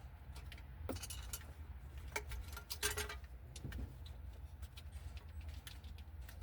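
Light metallic clinks and jangles from small tools or parts being handled, with scattered sharp clicks and two louder jangling flurries about one and three seconds in, over a steady low hum.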